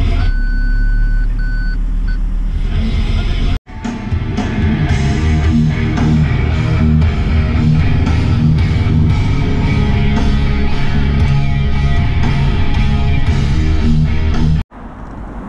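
Engine running inside a Ford pickup's cab with a few short electronic parking-sensor beeps while it reverses. About three and a half seconds in, this cuts suddenly to loud rock music with electric guitar and a steady beat. The music stops abruptly near the end, giving way to street traffic noise.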